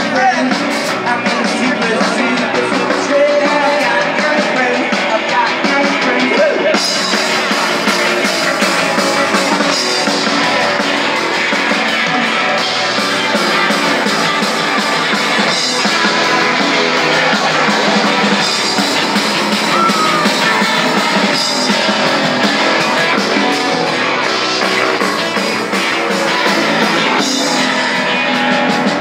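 Rock band playing live, with electric guitars, bass and a drum kit, in a garage-surf style. The sound grows brighter about seven seconds in and stays that way.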